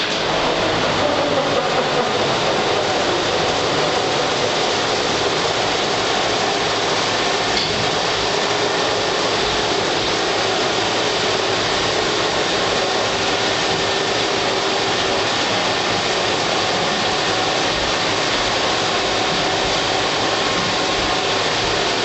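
Large industrial wood lathe cutting a log: a steady, dense mechanical roar of tool on wood, with a faint tone falling in pitch over the first couple of seconds.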